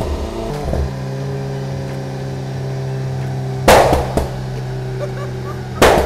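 Turbocharged Perodua Myvi G3 engine idling, broken by loud exhaust bangs (backfire pops): a sharp crack right at the start, then two big bangs about three and a half seconds in and near the end.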